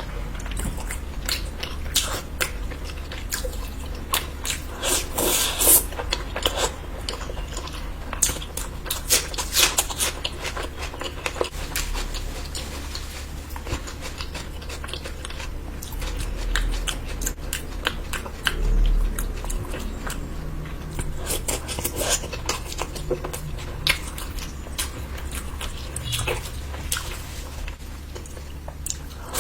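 Close-miked eating: wet chewing and biting with mouth smacks, coming in irregular runs.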